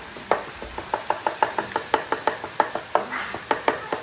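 Cleaver chopping cooked pork offal and blood sausage on a thick round wooden chopping board: quick, even knocks of the blade striking the board, about five a second.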